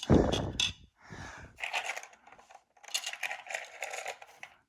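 A dull thump, then clicking and rattling of model railway track pieces being handled and fitted together.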